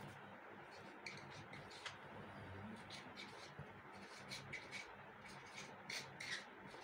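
Marker pen writing on a board: faint, irregular short scratches and squeaks of the pen strokes, several in quick runs.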